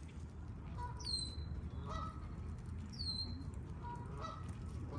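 Wild birds calling: a high note sliding downward, repeated about every two seconds, with fainter, lower calls in between.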